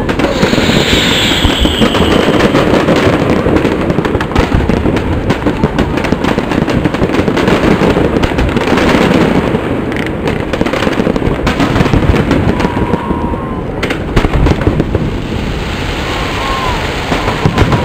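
Aerial firework shells bursting in a dense, continuous barrage of bangs and crackling, with a brief falling whistle about a second in.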